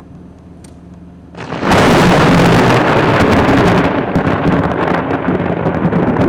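Close thunder from a nearby lightning strike: a sudden crack about a second and a half in that swells into a loud, crackling rumble that keeps going.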